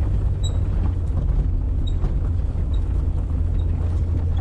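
1999 Jeep Cherokee XJ's engine running under load as it climbs a steep off-road trail: a steady low drone heard from inside the cab, with light ticks over it.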